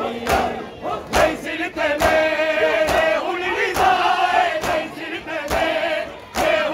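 Male voices chanting a noha in a steady rhythm while a crowd of men beat their chests in matam. The slaps of hands on bare chests land together as one sharp strike a little faster than once a second.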